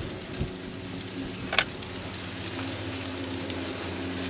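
Steady mechanical hum, like a fan or motor running, with a hiss over it. A light knock about half a second in and a sharp click about a second and a half in.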